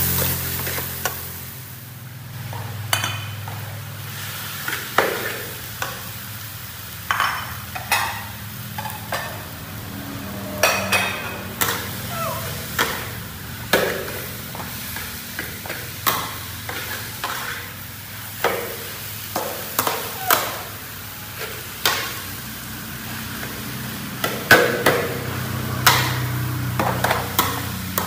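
Spatula scraping and knocking against an aluminium wok as vegetables and rice are stir-fried, in short irregular strokes about every second or two, with some sizzling and a low steady hum underneath.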